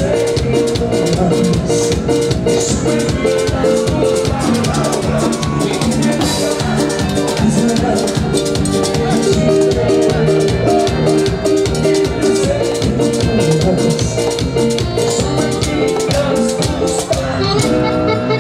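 A live band playing an instrumental passage of Latin dance music: a steady drum-kit beat with shaker-like percussion under held melody notes.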